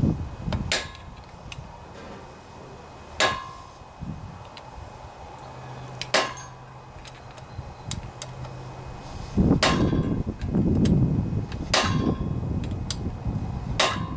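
A hammer striking a steel tool set on the edge of a seized screw head on a Briggs and Stratton Intek engine's cover plate: six sharp metal-on-metal blows a few seconds apart, each with a short ring, to shock the stuck screw loose. The screw does not appear to turn.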